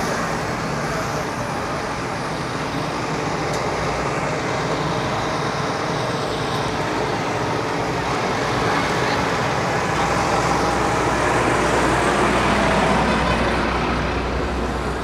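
Steady city street traffic noise: the din of passing cars, buses and trucks, swelling a little about nine seconds in as a low engine rumble joins.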